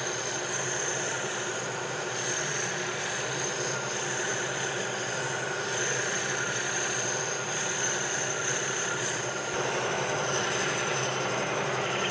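Metal lathe running under power, with a steady gear whine, while a boring bar takes a last light cut inside a cast iron nozzle casting.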